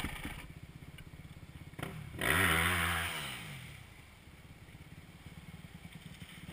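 Dirt bike engines: one idling with a steady low pulse, and about two seconds in a rev that rises and falls over about a second.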